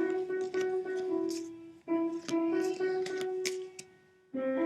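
Background music on a piano-like keyboard, playing a slow melody of held notes, with a brief pause near the end.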